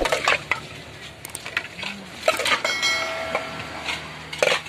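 A metal utensil scraping and clinking against a metal mixing bowl as minced-meat larb is stirred and scraped out onto a plate, with scattered sharp clicks and a brief ringing tone about three seconds in.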